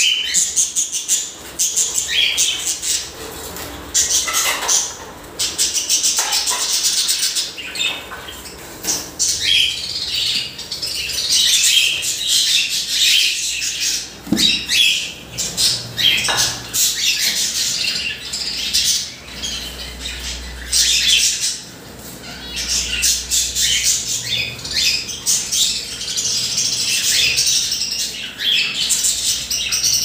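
Caged pet birds, cockatiels among them, chirping and squawking in a dense, near-continuous chatter of short high calls.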